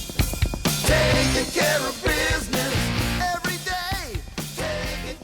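Rock song with a singer and a full band: background music.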